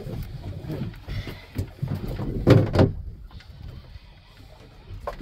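Irregular knocks and thuds around a fishing boat's deck over a low rumble, the loudest thud about two and a half seconds in.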